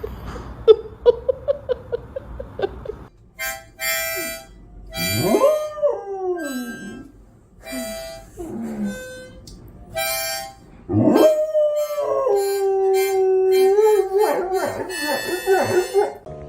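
A dog howling: a run of quick yips, then long howls that slide up and fall away, one held steady near the end. Short bursts of music sound between the howls.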